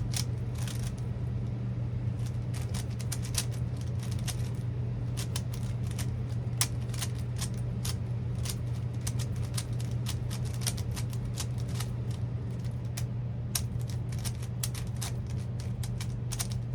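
Rubik's-type puzzle cube being turned quickly by hand: a rapid, irregular run of plastic clicks and clacks as the layers are twisted during a solve, over a steady low hum.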